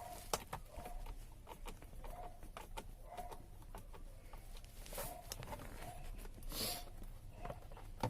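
Chickens clucking in short repeated calls, with scattered sharp clicks and a brief hiss about two-thirds of the way through.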